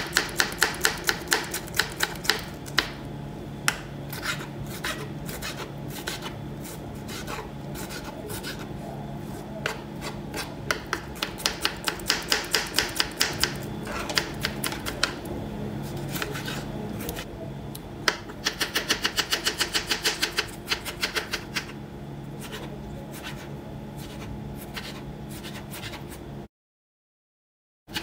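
Kitchen knife chopping tomatoes on a plastic cutting board: quick runs of sharp taps against the board, several a second, with short pauses between runs. A steady low hum runs underneath, and the sound cuts out briefly near the end.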